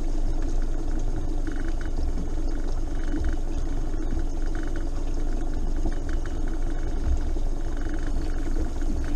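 Boat engine running steadily with a constant hum and low rumble.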